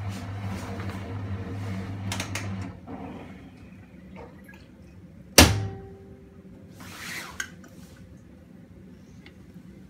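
Miele front-loading washing machine humming steadily as its drum runs down, the hum stopping about three seconds in. About two and a half seconds later there is a single sharp click with a brief ringing after it, then a soft rustle and a small click.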